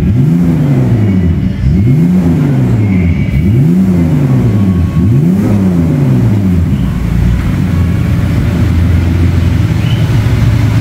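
BMW E46 325's 2.5-litre inline-six exhaust note through a test-fitted aftermarket muffler. The engine is blipped four times, each rev rising and falling back, then settles into a steady idle for the last few seconds.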